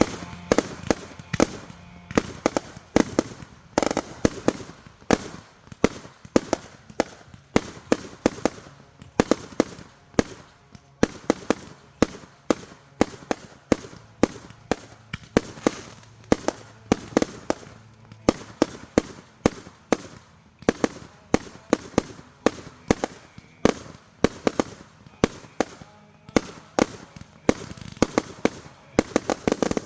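Consumer fireworks going off in a rapid, uneven string of sharp bangs, about two or three a second, with no let-up.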